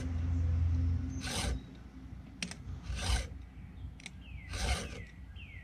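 Stihl 2-in-1 chain sharpener, with its round file and flat file, pushed across chainsaw cutters in three rasping strokes about a second and a half apart. It sharpens each tooth and takes down its depth gauge in the same stroke. A low rumble fills the first second.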